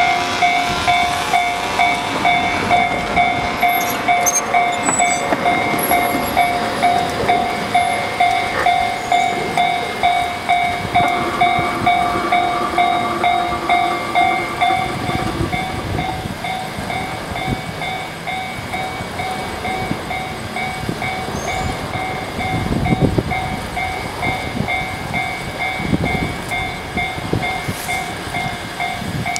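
Japanese level-crossing warning bell ringing on and on in an even beat of about two strokes a second, while a freight train, an EF65PF electric locomotive hauling a new railcar, rumbles through the crossing with the clatter of wheels over rail joints in the second half.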